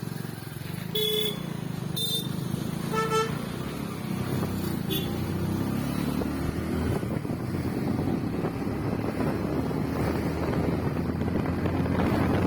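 Road traffic heard from a moving motorbike: engines running steadily while a vehicle horn gives three short toots in the first few seconds. Wind and road noise build gradually toward the end.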